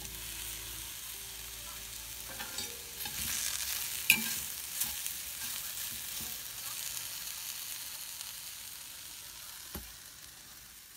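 Stir fry sizzling in a cast-iron skillet as it is stirred, with a few sharp clicks, one loud about four seconds in; the sizzle slowly fades toward the end.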